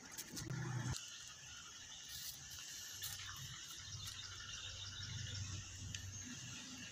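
Steady, high-pitched chirring of insects in the background, with a faint low hum. A few brief rustling clicks come in the first second.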